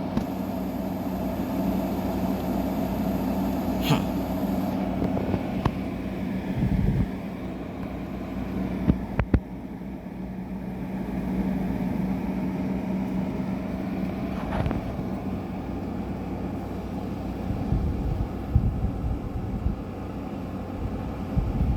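Window air conditioner's fan motor and blower running steadily with the compressor off, a constant hum with a few light clicks. The unit had iced up from an overcharge, which the owner suspects.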